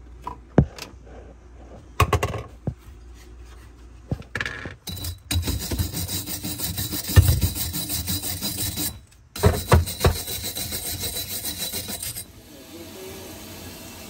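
Stiff bristle brush scrubbing the inside of a drain pipe stub in the wall, in rapid back-and-forth strokes. The scrubbing breaks off briefly about nine seconds in and stops near twelve seconds. A few sharp knocks and clicks come before it.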